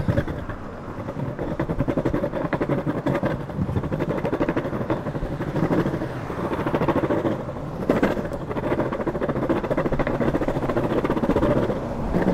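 Longboard wheels rolling over concrete paving slabs: a steady rumble with a fast rattle, and a sharper knock about eight seconds in.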